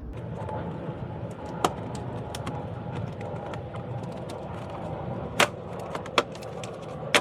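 Toyota Sequoia's plastic fender flare being pulled off the body, its retaining clips popping loose in a string of sharp clicks and snaps. The loudest snaps come about a second and a half in, about five and a half seconds in, and near the end, over a faint steady hum.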